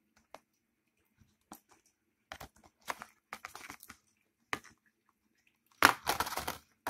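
DVD box-set packaging being handled: scattered light clicks and crinkles, with a louder rustle about six seconds in.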